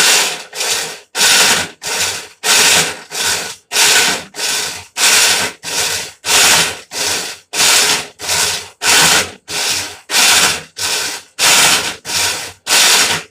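Colormaq 11 kg washing machine agitating with an abnormal harsh grinding noise on every stroke of the agitator. The noise comes in regular bursts, about three every two seconds, with a short break at each reversal.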